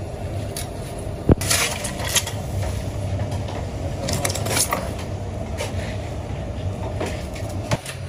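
A long-handled metal shovel scraping and clanking against a brick furnace floor while scooping out hot sand. There is a sharp clank about a second in and a few more strikes after it, over a steady low hum.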